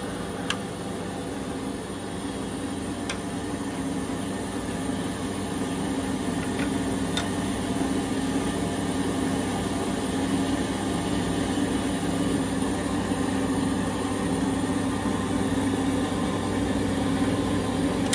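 ENCO vertical band saw running with no load: a steady motor and blade hum, with a few faint clicks.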